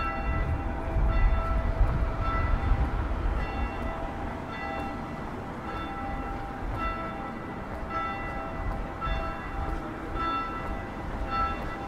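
Church bells ringing: a steady run of pitched strikes, roughly two a second, each ringing on briefly, over a low rumble that is louder in the first few seconds.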